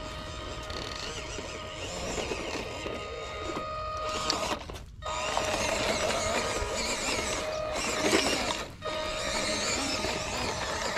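Small electric motor and gearbox of a 1/18-scale RC crawler whining steadily as it crawls over rocks, dropping out briefly twice, with background music underneath.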